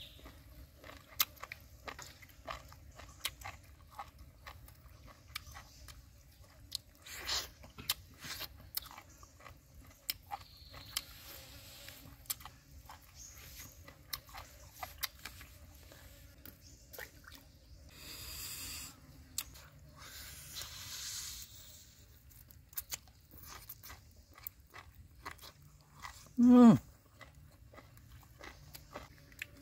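Close-up mouth sounds of a person eating: chewing, lip-smacking and small crunching clicks, with a couple of short hissy sucking noises about two-thirds of the way in. Near the end comes one brief, loud vocal sound falling in pitch.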